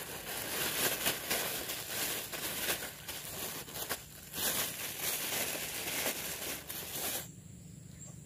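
Thin black plastic bag crinkling and rustling as it is handled, stopping abruptly about seven seconds in.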